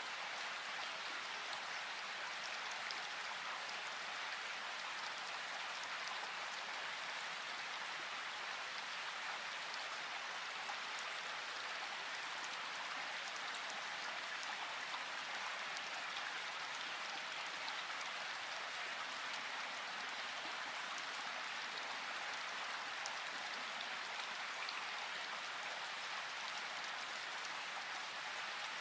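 Flowing water rushing and splashing steadily, with faint droplet ticks scattered through it and no change in level.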